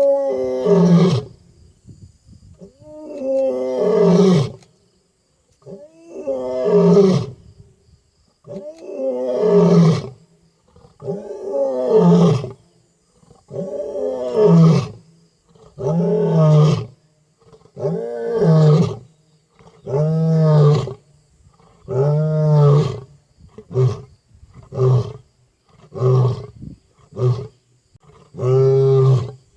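African lion roaring a full bout: a series of deep, loud roars about every two to three seconds, which shorten into quicker grunts over the last several seconds.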